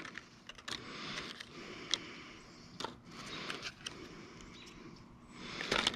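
Clear plastic packs of tungsten worm weights being handled and opened, a soft uneven rustle with a few small sharp clicks.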